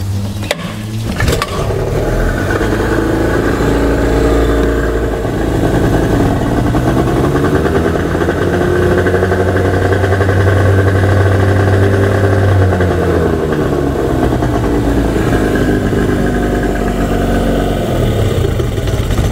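Yamaha 20 hp outboard motor pull-started, catching about a second in, then running with its cowling off. The throttle is opened so the engine revs up, holds, and is eased back down near the end.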